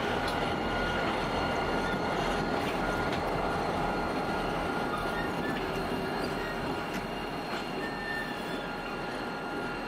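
Diesel-electric freight train moving slowly out of a siding: a steady rumble of locomotive engines and rolling stock, with a thin, steady, high squeal of wheels on the rails, easing off slightly in the second half.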